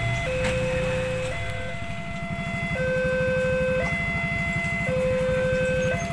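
Railway level-crossing warning alarm playing its new electronic tone: a melody of tones that alternate between a lower and a higher pitch, each held about a second. A low pulsing rumble comes in underneath about two seconds in.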